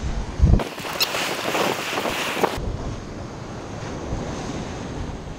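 Sea surf washing against rocks, with wind buffeting the microphone. There is a thump about half a second in, then a loud hissing rush for about two seconds that cuts off sharply, before steady surf noise returns.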